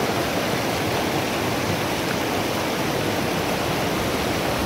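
Mountain stream from the Mandakini waterfall rushing over rocks and boulders: a steady, even rush of water with no let-up.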